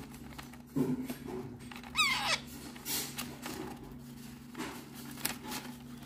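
Parrot chick being hand-fed formula from a dropper, giving soft squeaks and a short rising chirp about two seconds in, with a few faint clicks, over a steady low hum.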